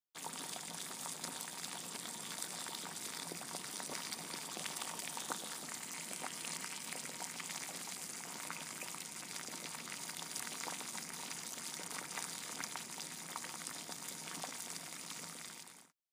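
Food sizzling: a steady crackling hiss that starts abruptly and fades out quickly near the end.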